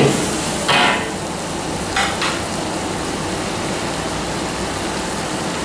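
Mussels, onions and green chillies sizzling in a hot wok, with a metal spatula scraping against the wok twice in the first couple of seconds, then a steady sizzle.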